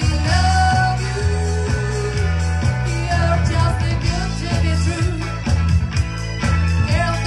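Live band playing an upbeat pop-rock song through a PA: a strong bass line steps between notes in a steady rhythm, with a melody line riding above it.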